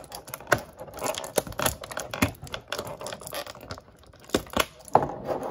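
Plastic packaging crinkling and tearing as a Mega Construx figure is unwrapped, with many sharp clicks from handling.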